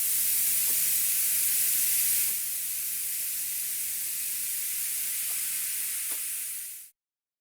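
Long, steady hiss, offered as an iguana hissing, with a few faint ticks. It drops slightly a little past two seconds and cuts off near the end.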